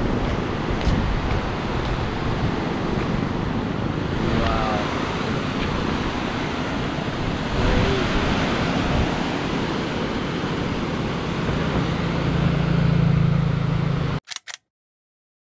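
Rushing floodwater of a swollen, muddy river pouring through rapids: a steady loud rush, with a low hum joining in near the end before the sound cuts off abruptly about 14 seconds in.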